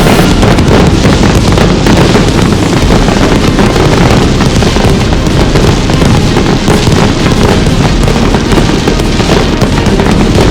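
Fireworks going off in a rapid, continuous barrage of loud bangs and crackles, one burst on top of the next with no gaps.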